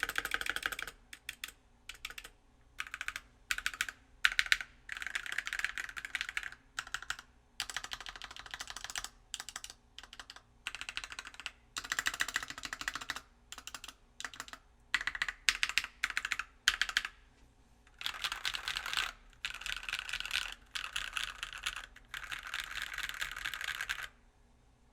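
Keystrokes on a stock NK65 Milkshake Edition mechanical keyboard with Silk Yellow linear switches in an aluminum plate: separate clusters of presses on the modifier keys, then longer runs of quick typing across the rows about two-thirds of the way in. The owner finds the stock stabilizers horrendous and the spring ping loud.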